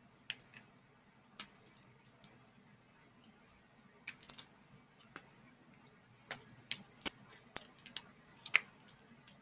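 Slime being stretched, folded and squeezed by hand, giving sharp clicking pops of trapped air bubbles: a few scattered ones at first, then coming thick and fast in the second half.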